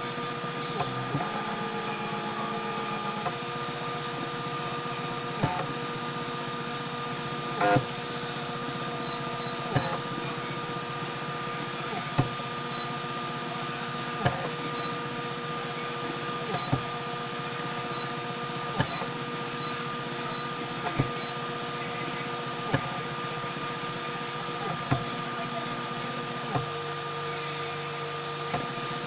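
Homemade 3D printer running a print: steady whining tones from its stepper motors shift pitch now and then as the head moves, with a short click about every two seconds.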